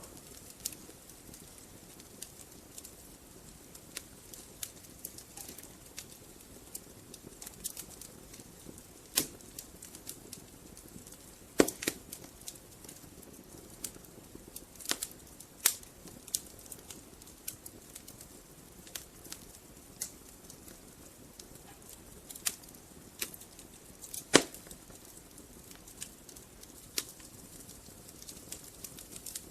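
Wood fire burning in a fireplace, crackling: irregular sharp snaps and pops over a soft steady hiss, with a few louder pops.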